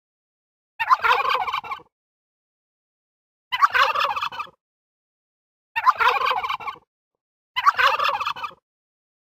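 Domestic turkey gobbler gobbling four times, each gobble a rapid rattling call about a second long, spaced two to three seconds apart with dead silence in between.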